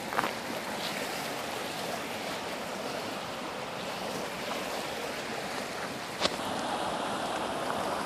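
Creek water rushing steadily over a shallow rocky bed, with two sharp clicks, one just after the start and one about six seconds in.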